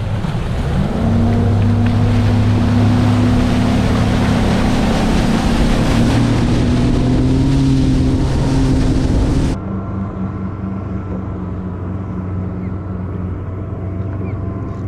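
Bass boat's outboard motor running at speed, its revs rising about a second in, with a rush of wind and water. About nine and a half seconds in this cuts off abruptly to a quieter, steady engine sound.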